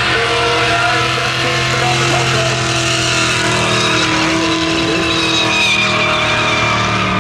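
Holden Commodore ute's engine held at steady high revs in a burnout, its rear tyres spinning and squealing on the bitumen.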